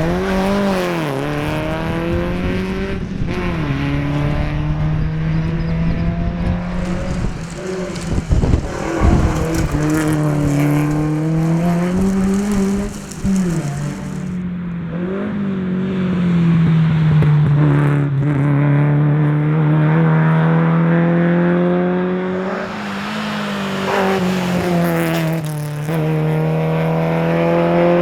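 Volvo 122S four-cylinder engine at racing speed, climbing in revs and dropping sharply again and again as it shifts gear and brakes for corners. Several loud knocks and thumps come about eight to ten seconds in.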